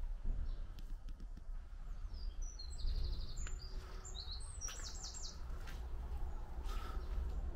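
A small bird chirping: a string of short, high chirps and quick trills from about two and a half to five seconds in, over a steady low rumble.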